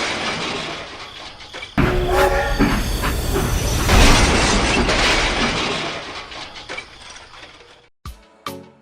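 A train running with a steady rumble and a short horn blast about two seconds in, then fading away and cutting off near the end.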